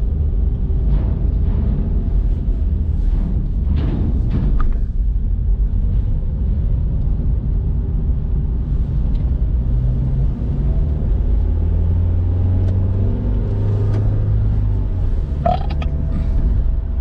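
Low rumble inside a car rolling off a ferry's steel transfer ramp, with the tyres clattering over the ramp grating and its joints in the first few seconds, then a smoother rumble on the paved lot.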